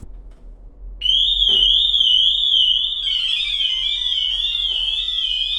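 Pandora Light Pro car alarm siren sounding: a loud, high warbling tone sweeping up and down about twice a second, starting about a second in. About three seconds in, a second layer of rapidly stepping tones joins the warble.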